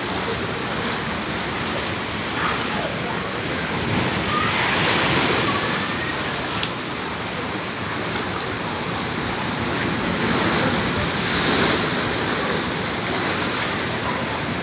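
Big sea waves breaking and washing in, a continuous rushing that swells with a surge about five seconds in and again about eleven seconds in.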